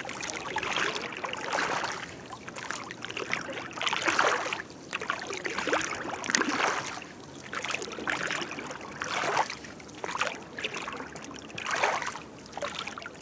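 Wooden oars of a rowboat dipping and pulling through the water, a swish and splash with each stroke, repeating every second or two.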